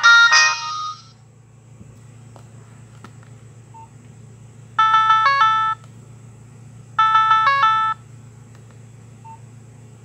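Nokia 1680 classic's loudspeaker playing tones: a polyphonic ringtone cuts off about a second in, then a short electronic tone melody of about a second sounds twice, near the middle and again two seconds later.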